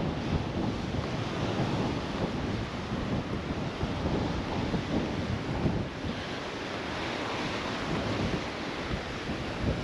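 Wind buffeting the microphone in uneven gusts over a steady rushing noise.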